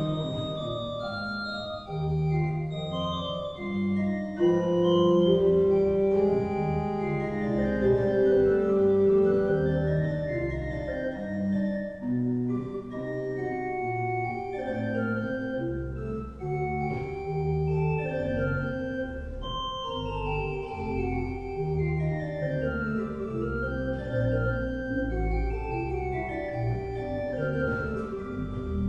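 Background organ music: runs of notes rising and falling over held lower notes.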